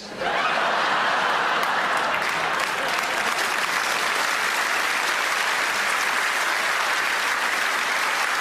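Theatre audience applauding: a dense, steady round of clapping that breaks out at once and keeps on at an even level.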